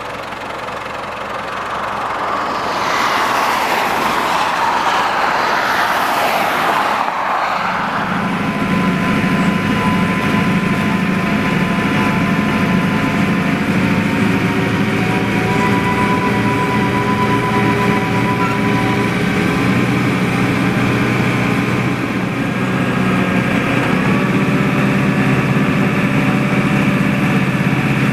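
New Holland tractor's diesel engine running steadily under load as it pulls a trail groomer, a low, even drone heard from inside the cab. For the first several seconds a broad rushing noise rises over it, then gives way to the steady engine.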